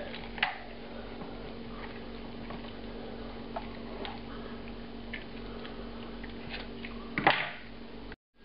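Raw chicken being pulled and torn apart by hand: faint wet squishing and small clicks of skin, flesh and joints giving way, over a steady background hum. A short, louder sharp sound comes about seven seconds in.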